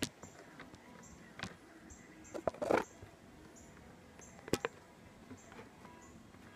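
A few sharp clicks and light knocks several seconds apart, with a short scraping rustle about two and a half seconds in: small camp coffee-making items being handled.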